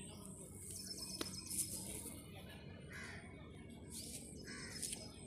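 Quiet outdoor background with a few short, harsh bird calls, the clearest near the end, and a single sharp click about a second in.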